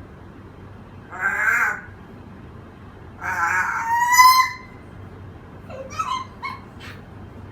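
African grey parrot calling: two calls, the second ending in a whistle-like tone, then a few short chirps and clicks.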